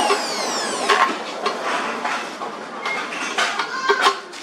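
Electric drill spinning down with a falling whine that dies out about a second in, followed by scattered clinks and knocks of steel pieces being handled.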